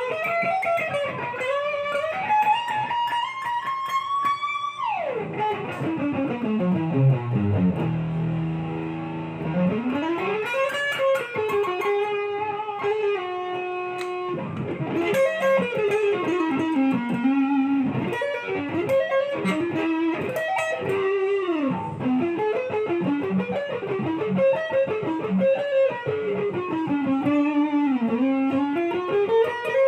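Essex Les Paul-style electric guitar playing single-note lead lines. About five seconds in, the pitch glides steeply down to a low note held for a couple of seconds, then the melody climbs back up and runs on in quick phrases.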